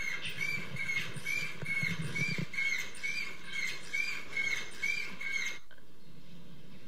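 Exercise glider machine squeaking over and over, about two short high squeaks a second in a steady rhythm with the strides, each squeak rising then falling in pitch. The squeaking stops abruptly near the end.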